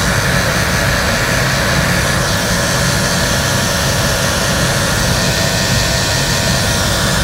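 Construction heat gun running, a steady whoosh of blown air over a low motor hum.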